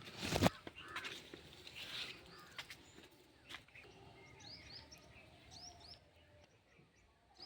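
Small birds chirping outdoors, a series of short high falling chirps, with a loud knock about half a second in and a few faint clicks.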